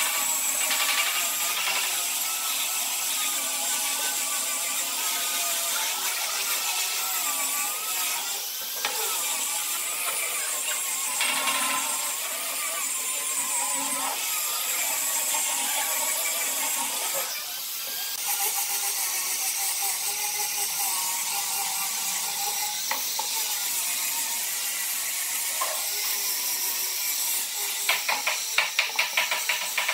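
A power tool working wood, running steadily with its motor pitch wavering as the load changes. A quick run of sharp clicks comes near the end.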